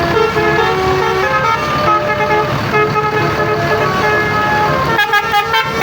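Tour bus 'telolet' (Basuri) musical air horn playing a tune of held notes that step up and down in pitch. About five seconds in it breaks into quick stuttering notes.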